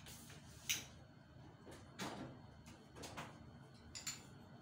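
Spoon and fork clinking and scraping lightly on a plate and bowl as food is served: a few soft clinks spaced about a second apart, the sharpest about three-quarters of a second in.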